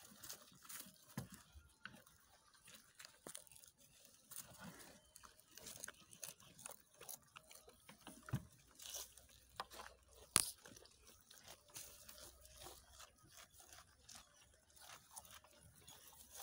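Baby goats chewing and tearing green fodder: irregular soft crunching and tearing, with a couple of sharper snaps, the loudest about ten seconds in.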